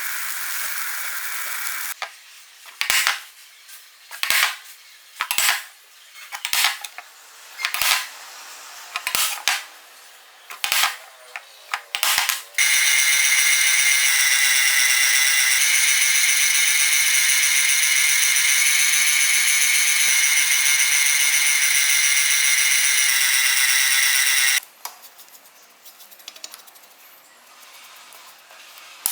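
A power tool in a metal-and-wood build: about ten short bursts, then the tool running steadily with a high whine for about twelve seconds before it stops suddenly. Light clicks and clinks follow.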